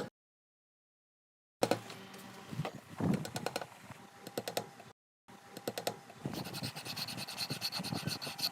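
Wood being worked by hand: scratchy scraping and rubbing with many small clicks and taps. It comes in two short edited stretches, each starting and stopping abruptly, and a faint steady high tone joins in during the second stretch.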